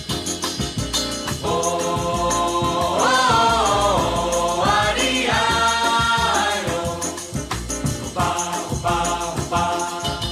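Backing music with a steady, quick beat and sustained group vocals in the middle, held notes that glide between pitches.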